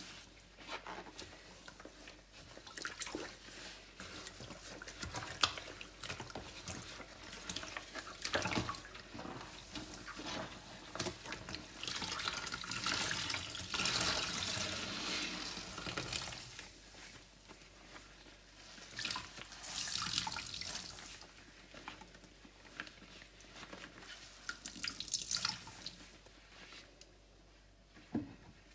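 A sponge soaked in floor-cleaner solution being squeezed, the liquid squelching out and splashing and dripping into a container. It comes in irregular spells, the longest and loudest about halfway through.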